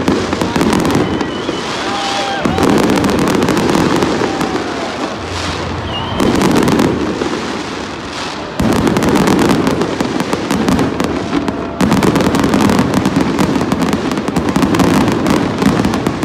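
Aerial fireworks display: a continuous barrage of shell bursts, bangs and crackle, with a few brief whistles, getting louder about halfway through.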